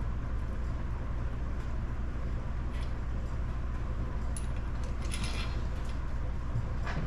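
A few light metallic clinks of tools and engine parts being handled during engine teardown, over a steady low hum.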